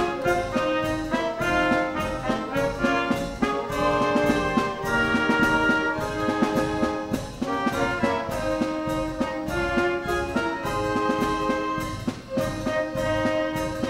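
Instrumental band music led by brass, with held melody notes over a steady beat.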